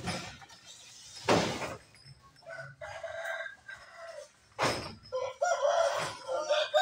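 A rooster crowing in long drawn calls, starting about two and a half seconds in and again near the end. Between the calls come a few loud, sharp knocks and clatters of crates being handled.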